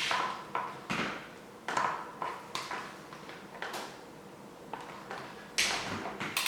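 Irregular sharp clicks and knocks of parts and tools being handled on a workbench, several with a short ring. A louder, longer rasping sound starts near the end.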